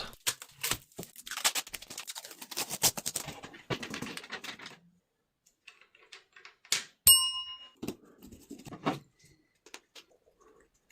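Clicks, taps and rattles of PC case parts being handled and fitted together: acrylic panels, aluminium mounts and screws. The clicks come thick and fast at first and then thin out, and one sharp knock about seven seconds in rings briefly like a struck piece of metal.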